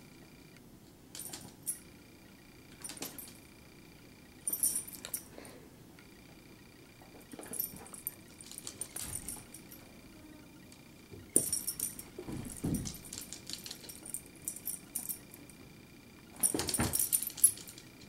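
Small dog's collar tags jingling in short bursts, about six times, as it wrestles with a cat, with paws scuffling on a bath mat; the longest burst comes near the end.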